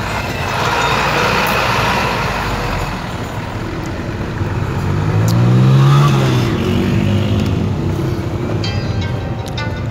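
Traffic noise heard from a moving vehicle: steady road rush, with a passing vehicle's engine rising and then falling in pitch, loudest about six seconds in.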